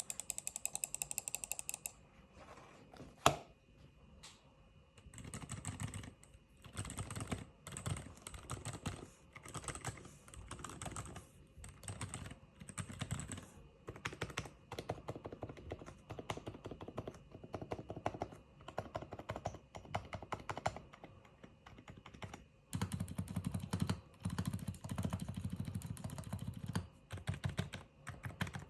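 Typing on a modded GMMK Pro mechanical keyboard fitted with silent switches, Boba U4 silent tactiles and silent Alpaca V2 linears. The keystrokes come in bursts with short pauses. A fast run of keypresses opens it, and one sharp click about three seconds in is the loudest sound.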